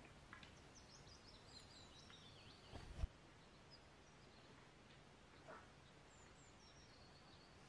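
Faint small birds chirping and twittering in short high calls, in two spells, over a quiet background hiss. A single dull thump about three seconds in.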